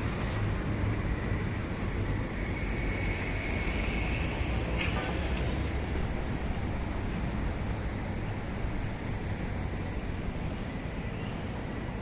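Steady city street traffic noise: a low rumble of passing vehicles, with a faint high whine a few seconds in and a sharp click about five seconds in.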